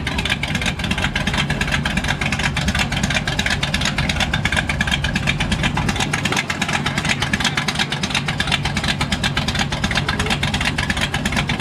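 Classic Ford Fairlane's engine idling through a loud exhaust, steady, with a rapid choppy pulse.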